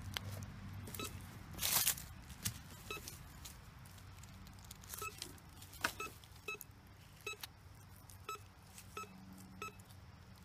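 Metal detector giving short, repeated target beeps at one pitch as the coil is swept over a dug hole, signalling a deep target that reads as a coin. A loud crunch of soil or leaves comes near two seconds in.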